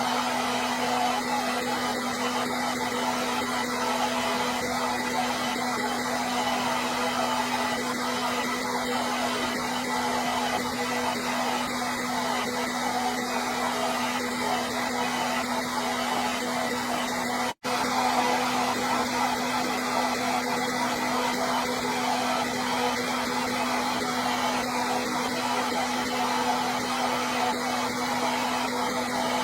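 Hair dryer running continuously: a steady rush of air with a constant motor hum. A split-second gap comes about two-thirds of the way through.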